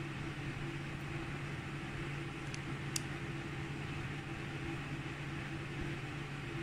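Steady machine hum with a low steady tone and an even fan-like hiss, with two faint light ticks near the middle.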